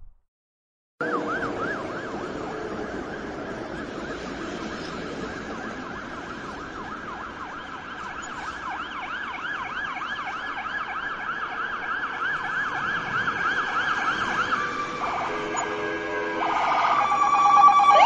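Ambulance siren in a rapid yelp, its pitch sweeping up and down several times a second and slowly growing louder as it approaches. About fifteen seconds in, it switches to a steadier, stepped tone pattern and is loudest near the end.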